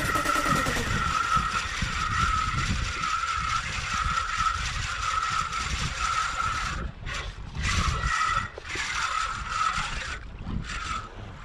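Fishing reel cranked steadily while fighting a hooked tuna, its gears whirring in even pulses about one and a half times a second, one per turn of the handle. The reeling stops briefly about seven seconds in, resumes in shorter spurts and dies away near the end.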